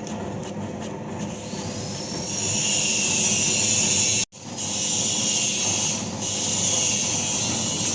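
Homemade taro-processing machine running with a steady hissing, rasping noise that grows louder about two seconds in and breaks off for an instant about halfway.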